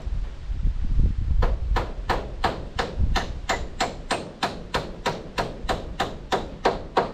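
Hammer blows on the wooden roof framing during roof work: a few strikes at the start, then a steady run of sharp blows at about three a second from about a second and a half in.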